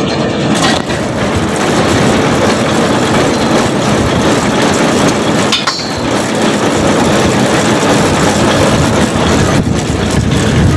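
Truck-mounted borewell drilling rig running: a loud, steady mechanical din, with one sharp knock about five and a half seconds in.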